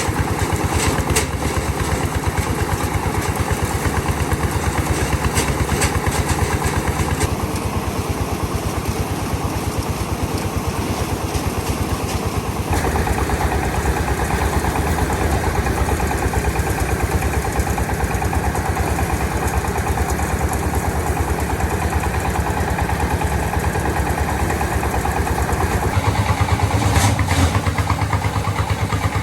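Single-cylinder diesel engine of a công nông farm vehicle running steadily with rapid, even chugging. Its sound shifts a couple of times as the throttle or load changes. There are a few sharp knocks.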